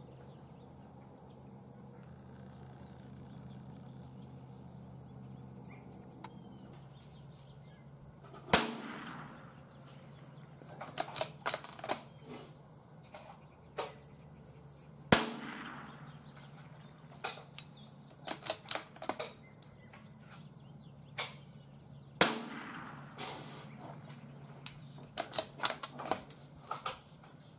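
CZ 455 bolt-action .22LR rifle firing Geco Rifle Match ammunition: three sharp shots about seven seconds apart, each trailing off in a short echo. Fainter sharp clicks and cracks come in between the shots.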